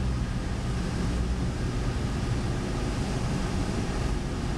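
Cessna 172's engine and propeller running steadily, a continuous drone heard from inside the cabin.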